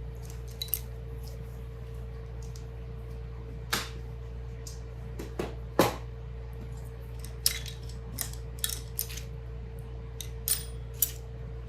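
Small metal hand tools being picked up and set down while being put away: about a dozen scattered clinks and taps over a steady background hum.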